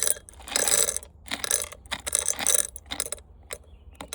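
Loose scrap parts from a dismantled floor fan, metal and plastic, clattering and rattling as they are piled into a container, in a string of short clatters about every half second.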